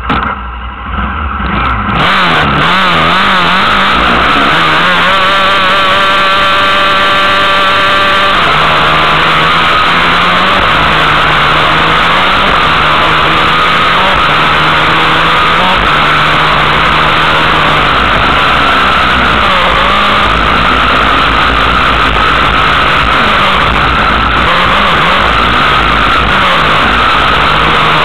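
Racing buggy engine running loud at high revs, its pitch wavering up and down with throttle and gear changes. About five seconds in, it holds one steady pitch for about three seconds.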